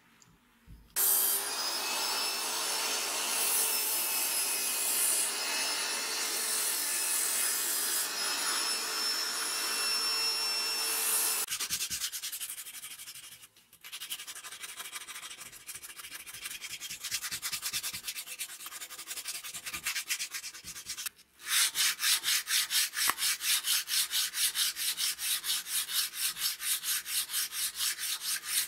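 A steady machine sound with a thin high whine runs for about ten seconds. Then abrasive paper is rubbed by hand along the edge of wooden straight-razor handle scales clamped in a vise, in uneven strokes. Near the end a file works the edge in quick, even strokes, about three a second.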